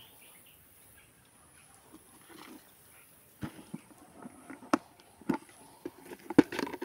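Plastic lid of a bait bucket being handled and pried off: a run of irregular clicks and knocks starting about halfway in, the loudest a sharp snap near the end.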